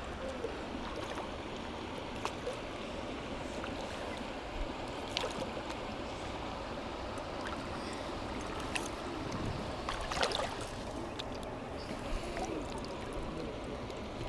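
Steady rush of flowing stream water, with a few light clicks and knocks now and then.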